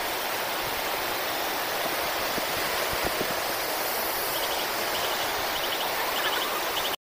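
Floodwater rushing down a street in a steady torrent, a constant even rush of water.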